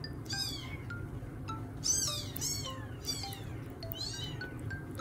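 A very young kitten mewing: about five short, high-pitched cries that rise and fall, the loudest about two seconds in. Soft chime-like background music plays underneath.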